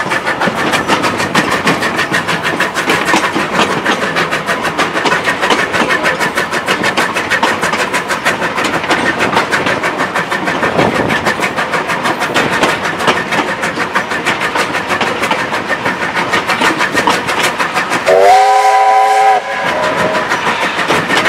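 Steam tank locomotive WW480, a 4-6-4T built in 1910, running with a steady rapid rhythmic beat, heard from an open wagon behind it. About eighteen seconds in, its steam whistle sounds one loud chord of several tones for about a second and a half, scooping briefly up in pitch as it opens. The whistle is sounded for a whistle board.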